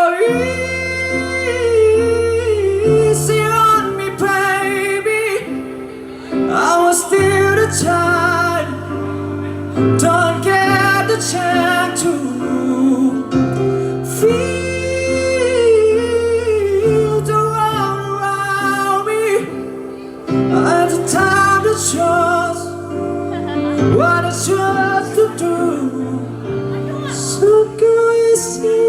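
A solo singer carrying a slow ballad melody with vibrato, no words made out, over sustained low accompaniment chords that change every second or two.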